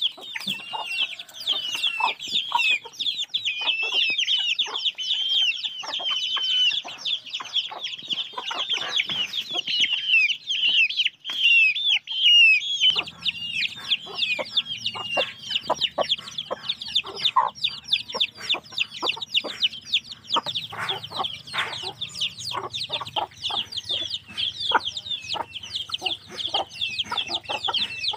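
Kampung chicken chicks peeping continuously in a dense stream of high, quick calls, with hens clucking among them. About halfway through, a low steady hum starts underneath.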